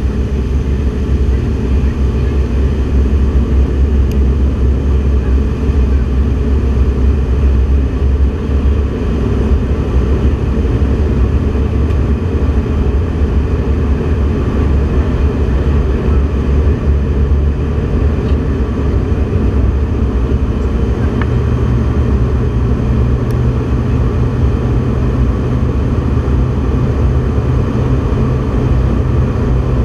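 Steady, loud cabin noise of an aircraft in flight: engine and airflow rumble heard from inside the cabin of a reduced-gravity research plane. The deepest rumble eases about a third of the way in, and a slightly higher hum comes up about two-thirds through.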